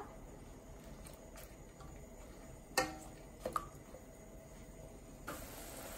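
Tongs knocking lightly against the stock pot twice as green onions are laid into anchovy-and-kelp stock. About five seconds in, the steady hiss of the stock at a rolling boil begins.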